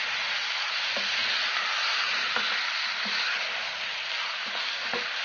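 Spice-coated chicken pieces sizzling as they fry in a non-stick pot, stirred with a spoon, with a few faint knocks of the spoon against the pot.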